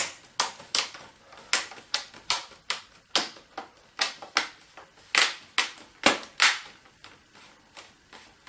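Plastic screen bezel of a Dell Inspiron 17 3721 laptop being pressed back onto the lid, its clips snapping into place in a quick, irregular run of sharp clicks, about three a second. Each click is a clip engaging, a sign the frame is seating properly. The clicks grow fainter near the end.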